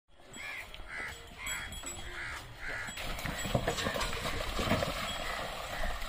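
A bird calls five times in quick succession. From about halfway the hooves of a pair of bulls and the wheels of their bullock cart clatter on a dirt track, growing louder as the cart approaches.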